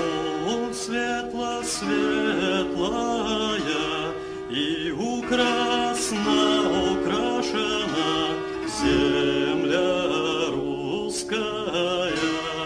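Background music: a singing voice with vibrato over sustained chords.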